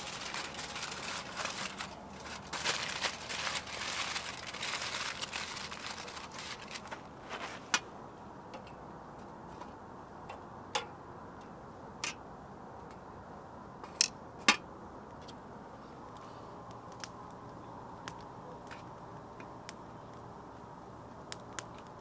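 Aluminium foil crinkling and rustling as it is opened by hand from around grilled meat, for about the first eight seconds. After that, a quiet background with a few scattered sharp clicks and pops from the charcoal grill, the loudest two close together about fourteen seconds in.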